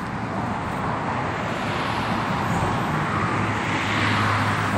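Road traffic: a motor vehicle's engine and tyre noise building steadily louder as it approaches.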